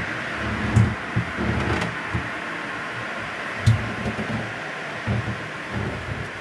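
Handling noise from a moving camera: soft, irregular low thumps and two sharp clicks over a steady hiss.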